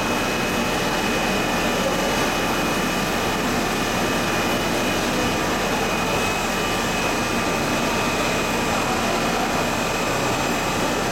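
Twin-screw PS sheet extrusion line running: a steady, even machine drone with a thin high whine held over it.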